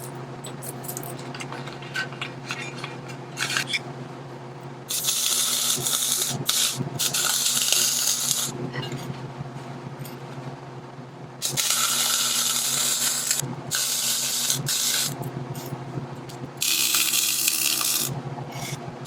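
MIG wire-feed welder laying beads in several separate runs of a few seconds each, a crackling hiss that starts about five seconds in, over the steady hum of the welding machine.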